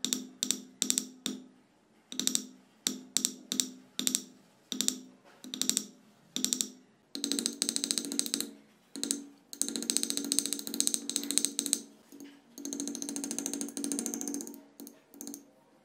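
A chasing tool tapping rapidly on a silver piece held in chaser's pitch, punching in engraved detail. It works in short bursts at first, then in longer runs of fast tapping after about seven seconds.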